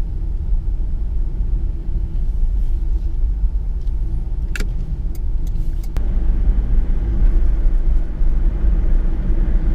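Steady low road and engine rumble heard from inside a moving vehicle's cabin, with a few brief sharp clicks a little past the middle.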